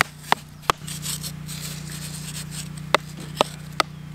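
Sticks scraping and digging in sandy dirt, with sharp taps in two runs a few tenths of a second apart. A steady low hum runs underneath.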